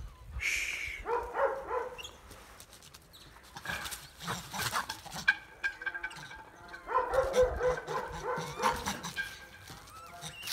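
Doberman puppy barking in quick runs, about a second in and again from about seven seconds, with scattered scuffs and knocks between the runs.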